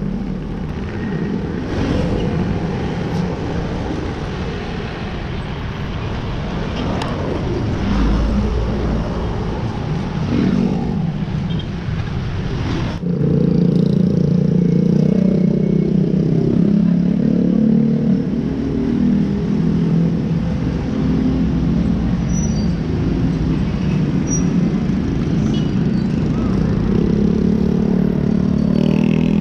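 Road traffic noise from passing motor vehicles. About 13 seconds in it cuts abruptly to a steady low engine hum.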